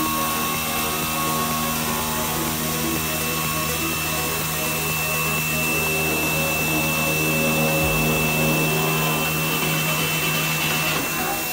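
Router spindle of a Semac SM-CNC-1300A router-bit jigsaw running with a steady high whine while its bit cuts a curve through a thick laminated wood blank fed by hand.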